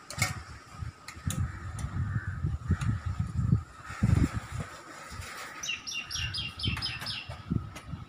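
Metal tyre lever clicking and scraping against a bicycle wheel rim, with handling bumps, as the tyre bead is levered off all the way round. Near the end a bird chirps a quick run of about eight short, high notes.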